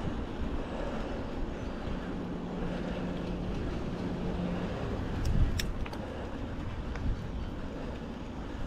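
Steady low rumble of a mountain bike ride, from wind and tyres. A low steady hum runs for about three seconds from two seconds in, and a few sharp clicks come at about five and a half seconds.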